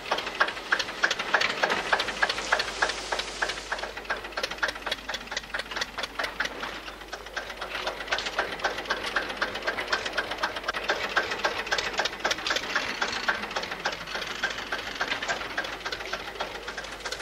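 Tractor engine running with a rapid, even knocking beat.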